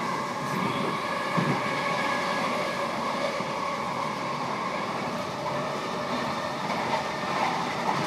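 Electric suburban train running along the line: a steady rumble of wheels on track with a whine over it, and a single knock about a second and a half in.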